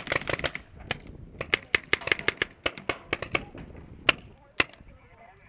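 Paintball markers firing: a rapid string of shots at the start, then scattered shots and short bursts, ending in two single shots.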